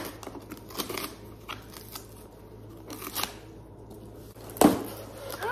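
Corrugated cardboard shipping box being ripped open along its tear strip: scratchy, crackly tearing of cardboard and tape in short pulls, with one sharp louder rip or knock near the end.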